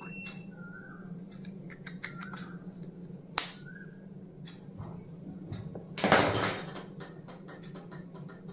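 Hands handling plastic stationery items and packaging: small clicks and taps, a sharp click about three and a half seconds in, and a short rustle of packaging about six seconds in, over a steady low hum.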